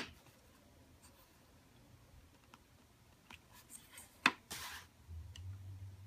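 Quiet handling of stamping supplies on a tabletop: a few faint taps, then one sharp plastic click about four seconds in from the ink pad and acrylic stamp block, followed by a brief soft rub. A low steady hum comes in near the end.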